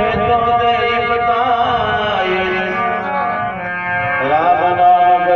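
Rajasthani bhajan: a man sings long held notes that slide up and down in pitch, over a harmonium's sustained chords and a dholak beating underneath.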